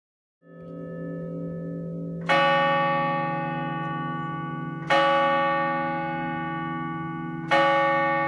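A single church bell tolling: its hum fades in, then it is struck three times about two and a half seconds apart, each strike ringing on and slowly dying away.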